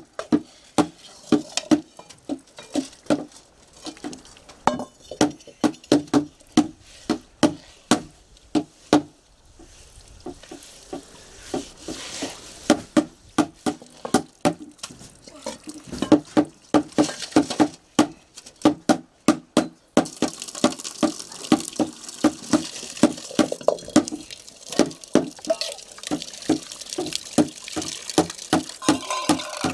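Metal woks and pots being scrubbed by hand: a steady run of short scraping strokes, about two or three a second, against the metal. About two-thirds of the way through, running water joins in, and steel dishes clink while being rinsed.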